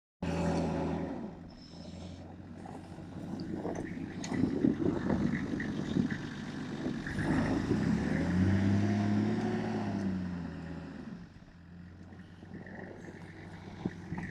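Nissan Patrol Y60's engine running under load off-road, with several knocks about four to six seconds in. The engine pitch rises and then falls again from about eight to ten seconds in.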